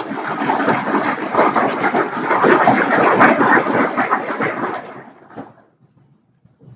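Audience applauding, dense clapping that dies away after about five seconds.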